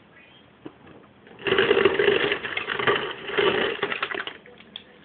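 Refrigerator door dispenser running into a mug for about three seconds, starting about a second and a half in: a steady motor hum with a fast rattle, then it stops.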